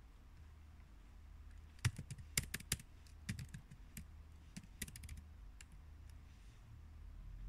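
Typing on a laptop keyboard: short bursts of key clicks, thickest about two to three seconds in and thinning out after about five seconds.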